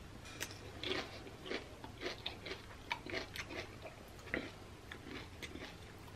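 A person chewing a mouthful of Dorito-chip nachos, with irregular crunches about two a second.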